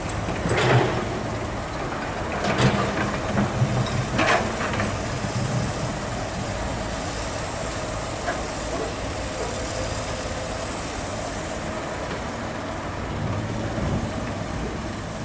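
Diesel engines of a Komatsu PC200 excavator and a dump truck running steadily. In the first few seconds, three heavy thuds come as the bucket dumps soil and rock into the truck's steel bed.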